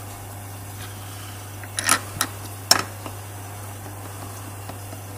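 A few sharp metal clicks and clinks as bolts are fitted by hand into the rear lower arm bush bracket under a Mk5 VW Golf. The clicks come about two seconds in and again just under three seconds in, over a steady low hum.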